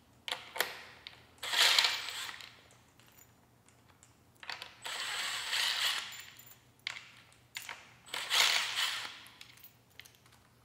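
Cordless impact driver with a 17 mm socket run in four short bursts, backing out the phase-lead bolts on an electric motor's phase block, with a few small metallic clicks between the bursts.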